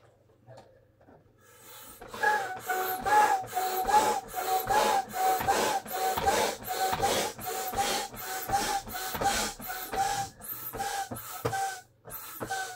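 Upright hand air pump with a T-handle worked in quick strokes, about two a second, each stroke a rush of air with a whistling tone as it blows into an inflatable toy. The pumping starts about two seconds in.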